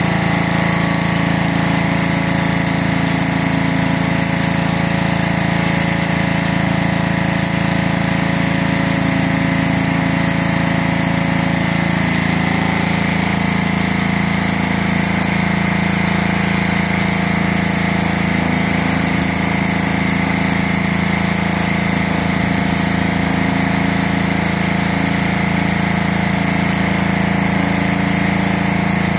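Petrol-engine pressure washer running steadily, with the hiss of high-pressure water jets from a rotary surface cleaner being pushed across concrete.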